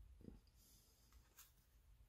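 Near silence: room tone with a low hum and a faint click.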